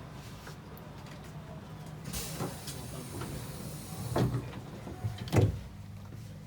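Sliding doors of a Saitama New Shuttle 1050-series people-mover car working: a hiss about two seconds in, then two heavy thumps, the second the loudest, over a steady low hum from the car.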